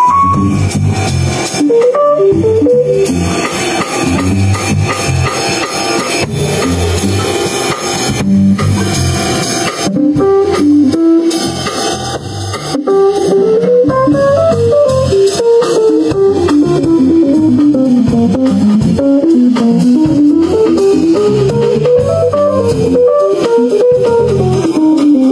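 A live jazz band with keyboard, guitar, bass and drum kit playing. A fast, winding melodic line runs over the rhythm section, with a brief dip in level about twelve seconds in.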